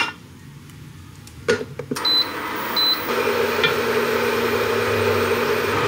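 Butter cubes dropping into a saucepan with a couple of knocks, then two short high beeps from a portable electric hob being switched on. The hob then runs with a steady hum and a light hiss.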